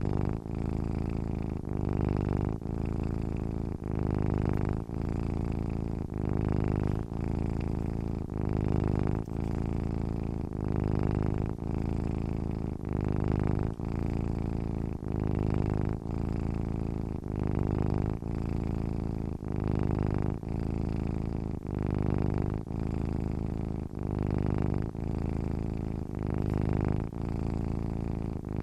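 Domestic cat purring steadily while asleep. The low purr swells and dips in an even rhythm with each breath, pausing briefly about every second.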